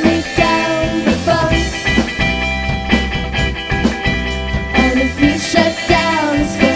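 A live band plays a rock song: regular drum hits, bass and guitar, with wavering sung lines near the start and again near the end.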